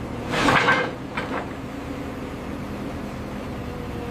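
An excavator running with a steady mechanical hum while its grapple handles steel I-beams. Just under a second in comes a short burst of metal clanking and scraping, and a smaller knock follows about a second in.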